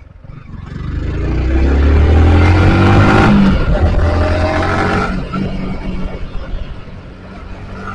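Yamaha R15 V4's single-cylinder engine accelerating: it gets louder and rises in pitch for a couple of seconds, runs level, then eases off about five seconds in.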